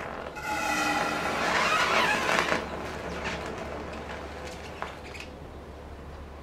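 Amorphous boron burning in liquid nitrous oxide. It opens with a short whistling tone, then flares into a loud rushing burn about two seconds in, which fades into scattered crackles and a low hiss.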